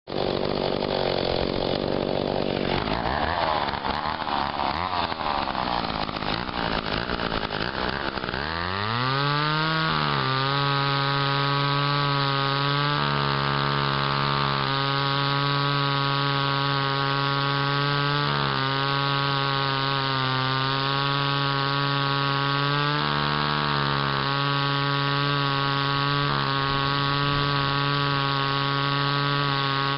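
McCulloch 10-10 chainsaw's single-cylinder two-stroke engine running as it cuts through a log. The sound is uneven for the first several seconds. About eight seconds in, the engine pitch rises and then holds steady, with brief dips twice.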